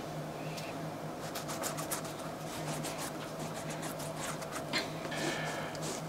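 Hand scrubbing of a worn hiking boot: soft, irregular rubbing and scratching strokes over a steady low hum.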